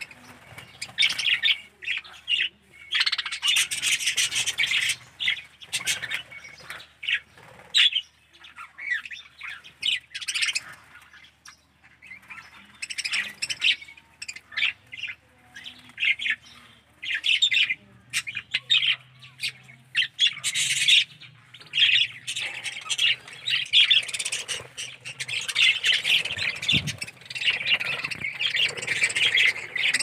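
A flock of budgerigars chattering: a constant stream of overlapping short squawks and chirps.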